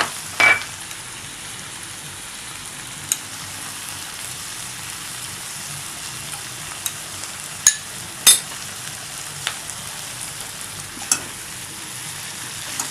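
Chilli chicken sizzling steadily in a pan as it is stir-fried, with a spatula knocking sharply against the pan about half a dozen times.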